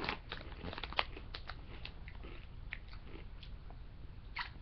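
Crunchy chips being bitten and chewed close to the microphone: a quick run of crunches in the first two seconds, then a few scattered ones.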